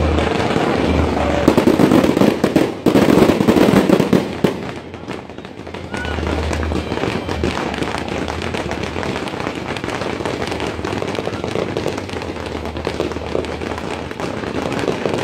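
Fireworks going off in rapid succession. Heavy bursts come about one and a half to four and a half seconds in, then a steady, dense crackling of many glittering shells.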